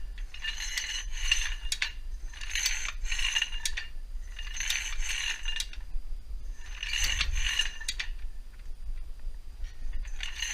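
Hi-Lift farm jack being pumped in lift mode. Each handle stroke brings a cluster of metallic ratcheting clicks and clacks as the climbing pins step up the steel bar. There are about five strokes roughly two seconds apart, with a longer pause before the last one.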